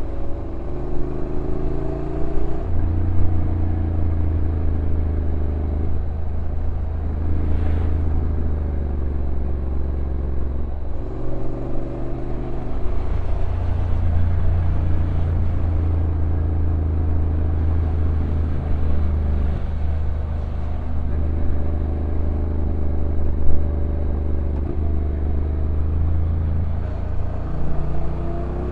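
Honda NC750X DCT's parallel-twin engine running on a downhill ride, its note gliding down and rising again several times with sudden steps as the dual-clutch gearbox changes gear. One sharp knock stands out a little before the end.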